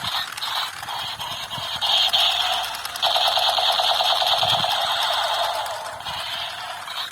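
Battery-powered toy pistol playing its electronic machine-gun sound effect: a fast, buzzy rattle from a small speaker, louder from about three seconds in.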